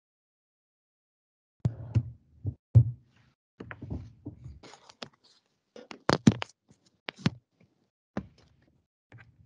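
Irregular knocks and clicks picked up through a video-call microphone, starting about two seconds in. Some are dull low thuds and others are sharper, with the loudest near the start and again in the middle.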